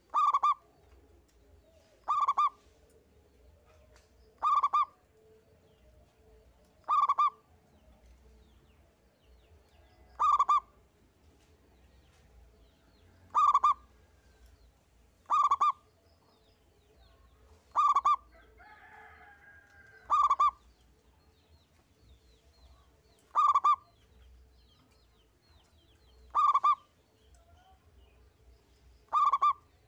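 Zebra dove (perkutut) repeating a short, high coo about every two to three seconds, a dozen times, in the simple single-phrase 'engkel' style of singing.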